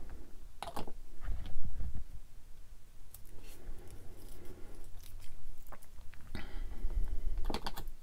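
Close handling noise from fitting small plastic model-kit parts: scattered light clicks and taps, fingers rubbing on plastic, and a few low bumps right at the microphone, the loudest about one and a half seconds in.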